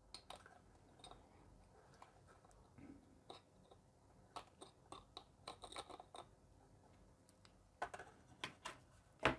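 Faint scattered clicks and scrapes of needle-nose pliers working against an LED bulb's circuit board as a burned-out surface-mount LED is pried off and broken away, with a few louder clicks near the end.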